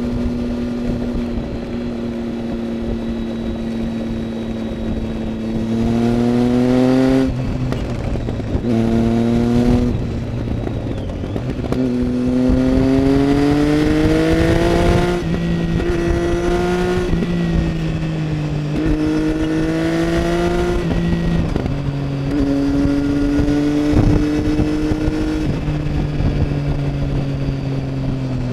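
Triumph Tiger 800 XC's three-cylinder engine through a LeoVince aftermarket exhaust, heard from the saddle while riding. It runs steadily, then pulls up in revs several times, the pitch rising through each pull and dropping between them, before settling back to steady cruising.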